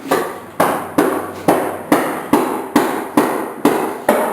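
A hammer striking the pool table's wooden frame in a steady rhythm of about two blows a second, each blow ringing briefly, as a side of the table is knocked into position.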